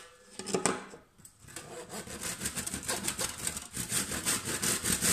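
Bahco handsaw starting a 45-degree cut into a laminate-faced chipboard board, the blade guided against a set square. A few light knocks as the saw is set on the edge, then quick short back-and-forth strokes from about two seconds in, getting faster and louder toward the end.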